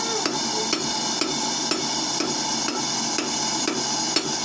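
Hand hammer striking red-hot rebar on a steel anvil, a steady rhythm of about two metallic blows a second, each with a bright ring.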